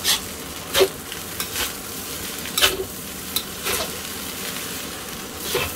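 Fried rice sizzling in a stainless steel wok while a metal spatula stirs and tosses it, with several sharp scrapes of the spatula against the pan at uneven intervals.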